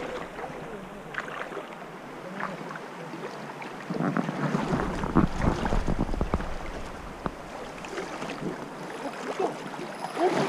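River water lapping and splashing around the boat and a wader's legs, with wind rumbling on the microphone. It is busiest from about four to seven seconds in.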